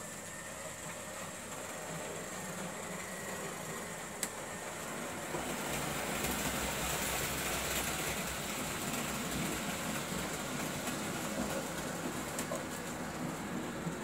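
Märklin H0 model SBB Crocodile locomotive running with its freight train: motor hum and wheel noise on the track, growing louder about five and a half seconds in as the train comes closer. A single click about four seconds in.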